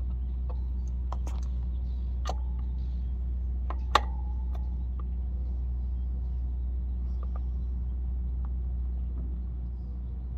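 Metal clicks and clinks of a wrench on a motorcycle's rear axle nut as it is tightened down. There is a sharp clank about four seconds in that rings briefly. A steady low rumble runs underneath.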